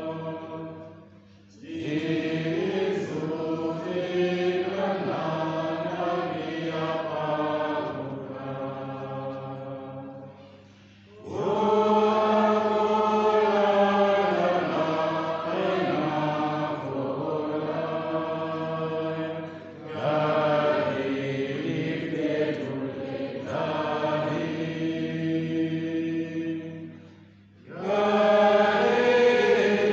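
Slow liturgical chant sung in long held phrases, with four brief pauses for breath between phrases.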